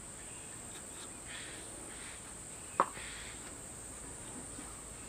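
A steady high-pitched drone of insects, with a few soft scrapes of a knife cutting a tomato and one sharp click a little before the middle.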